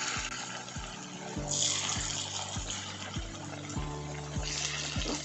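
Rice-flour and potato fritters deep-frying in hot oil in an iron kadai: a steady sizzle of bubbling oil. Background music with a steady beat plays underneath.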